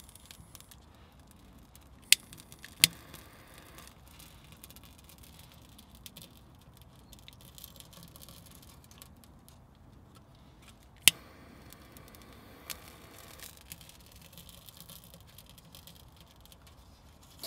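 Quiet handling of birch bark and twigs in the open firebox of a small steel camp wood stove as the tinder is lit, with a few sharp clicks, the loudest about two, three and eleven seconds in.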